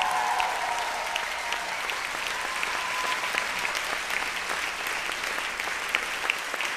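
Audience applauding: dense, steady clapping from a large crowd in a hall.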